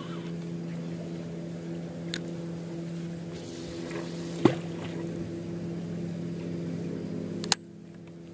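An engine running steadily at an even low pitch, with three sharp clicks from handling the spinning reel and line, the loudest about halfway through.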